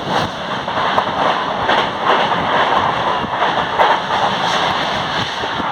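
Moving local train: a steady rushing noise with irregular swells and a few sharp clicks.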